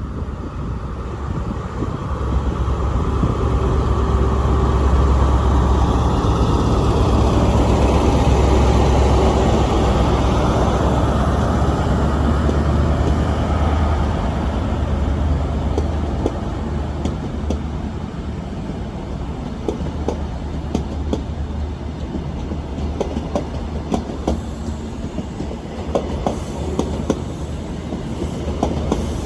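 A train running through the station with a heavy low rumble that swells over the first few seconds and then eases. In the second half the wheels click more and more over the rail joints.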